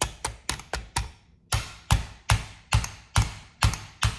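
A mallet tapping a tight 3D-printed front grip onto a shotgun, about a dozen sharp knocks: a quick, lighter run in the first second, then harder, evenly spaced blows at about two to three a second.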